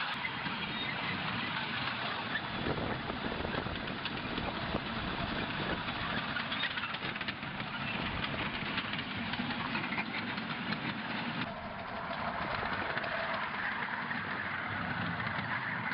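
Live steam ride-on scale train running along its track, a steady rumble of the locomotive and cars with the wheels clattering over the rails.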